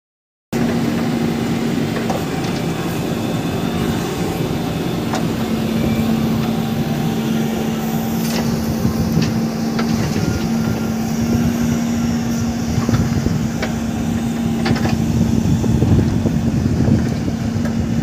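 JCB 3DX backhoe loader's diesel engine running steadily under load with a constant whine, while the backhoe bucket digs into stony rubble, with a few sharp knocks of stone on steel.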